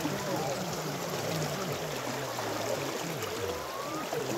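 River water swishing and splashing around people wading and moving in it, a steady rushing wash, with several voices low in the background.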